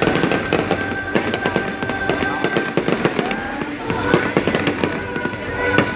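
Fireworks display going off in rapid, continuous crackling bangs and pops, with a sharper bang near the end.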